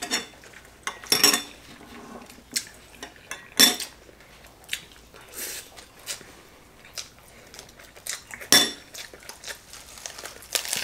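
Utensils clinking and tapping against ceramic plates at a meal: several sharp ringing clinks, about a second in, near four seconds and again past eight seconds, with softer clicks and taps in between.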